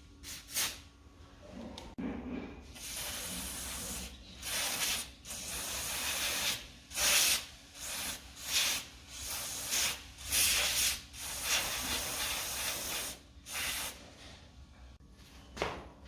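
Aerosol can of penetrating degreaser sprayed onto a bicycle crank in many short hissing bursts, some longer than others, flushing out dust and grit.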